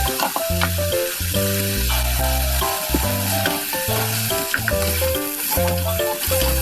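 Food sizzling as it fries in oil in a pot, heard under background music with a melody and a bass line. The music is the loudest part.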